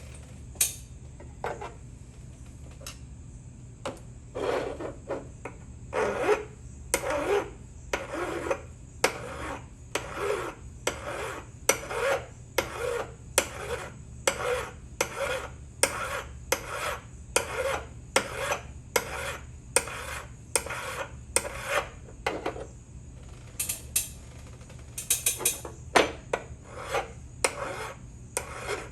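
A steel ratchet being scrubbed by hand in quick back-and-forth strokes, about two a second once it gets going, cleaning rust off the metal.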